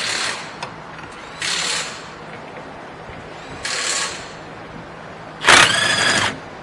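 Half-inch impact wrench run in short trigger bursts on the 14 mm bolts holding the rear hub bearing, loosening them: three half-second bursts, then a longer, louder one with a ringing tone about five and a half seconds in.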